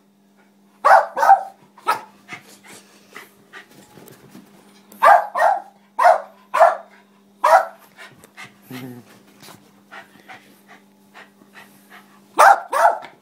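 West Highland White Terrier barking in short, sharp barks in bursts: two about a second in and one just after, a run of five between about five and seven and a half seconds, then three quick barks near the end.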